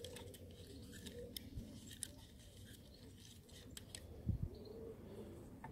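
Faint clicks and ticks of a small screwdriver working the tiny screws out of a wing mirror's plastic motor mount, with a soft low thump about four seconds in.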